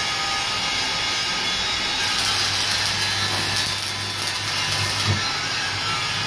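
Stick arc welding on a steel truck wheel rim: the arc's steady crackling hiss comes in about two seconds in and stops about three seconds later with a short click, with the welder's low hum under it. A steady machine noise runs underneath throughout.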